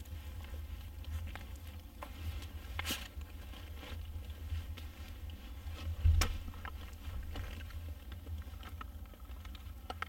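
Rustling and knocking of dead wood and bark slabs handled and set down on soft forest earth and moss, with a dull thump about six seconds in and a sharper crunch near three seconds, over a low rumble.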